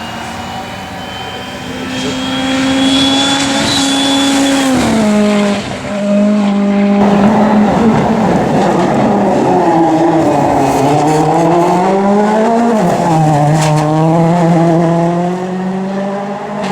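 Ford Fiesta RS WRC rally car's turbocharged engine running hard on a stage. The revs climb, then drop in two quick downshifts about five and seven seconds in. Through the middle the pitch sweeps down and back up under loud tyre noise, and near the end the engine settles at a steady lower pitch.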